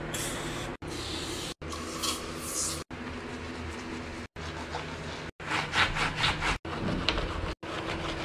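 A cleaning cloth scrubbing and rubbing hard household surfaces in a string of short takes, each cut off abruptly by a brief silence about every second.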